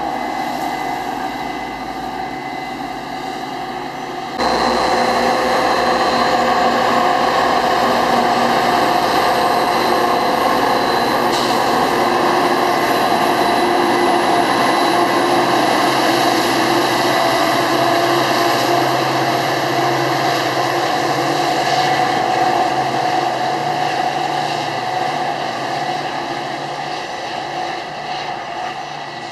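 Metra commuter train passing close at speed, headed by two diesel locomotives: engine noise mixed with the rumble and hiss of wheels on rail and several steady tones. It gets suddenly louder about four seconds in and fades slowly near the end as the train moves off.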